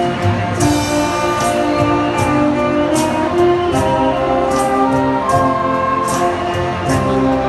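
Saxophone ensemble playing a slow melody in held notes over a steady beat with cymbal strikes.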